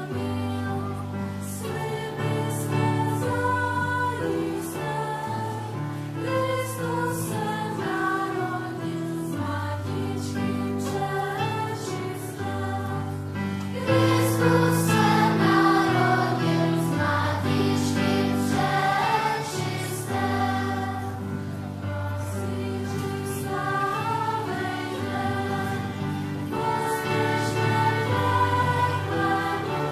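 Children's choir singing a Christmas carol over steady, sustained low accompaniment; the singing grows louder about halfway through.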